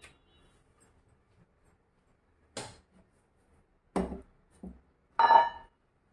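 Kitchen utensils and dishes being handled: four separate knocks about two and a half to five seconds in, the last the loudest, with a short ring.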